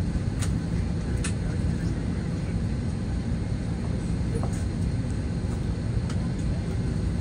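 Steady low cabin rumble inside an Airbus A320-214 airliner, with a couple of faint sharp clicks about half a second and a second into it.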